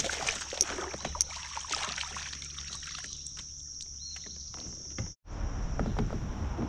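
Water splashing and trickling at a kayak, with a few sharp knocks in the first second or so, over a steady high-pitched buzz of insects. The sound cuts out briefly a little after five seconds and comes back with a low rumble.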